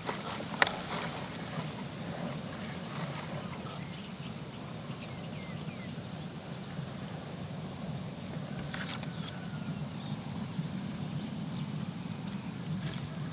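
Small bird chirping: short, high, falling chirps, scattered at first and then repeated about twice a second in the second half, over a steady low hum. A sharp click comes just after the start.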